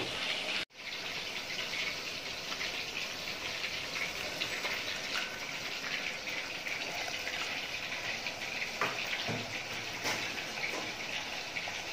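Boiled chicken stock with tomato poured from a saucepan onto raw rice in a pot: a steady splashing gush of liquid, after a brief dropout near the start.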